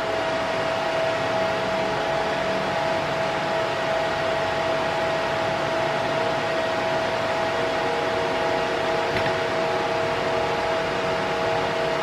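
Server cooling fans running steadily: an even rushing hum with a constant whine.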